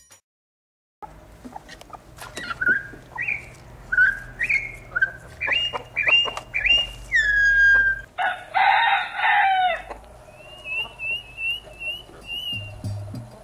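A rooster crows once about eight seconds in, the loudest sound here, with its call falling at the end. Before and after it come strings of short rising bird calls and quick repeated chirps. The sounds start after about a second of silence.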